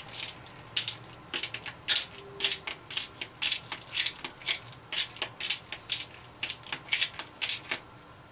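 Hand-twisted spice mill grinding spice, a run of short grinding strokes about two to three a second that stops shortly before the end.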